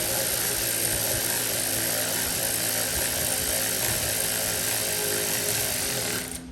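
Loud, steady rushing noise of a running machine with a low hum underneath, cutting off abruptly near the end.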